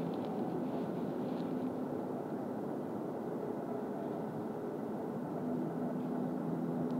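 Steady low background rumble of distant engine noise, with a faint droning hum that comes back about five and a half seconds in.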